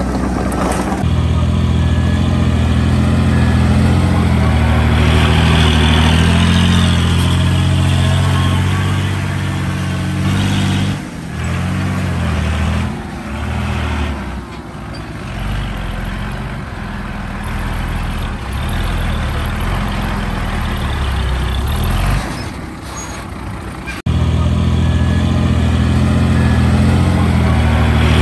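Heavy diesel engines of a crawler bulldozer and a loaded dump truck running, a steady low drone. It drops and wavers through the middle, then returns abruptly at full strength near the end.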